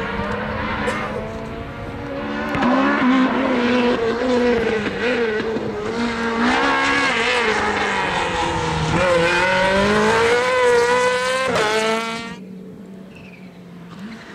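Rally car engine revving hard, its pitch climbing and falling again and again as it changes gear. About twelve seconds in the sound cuts off abruptly, leaving only a faint engine.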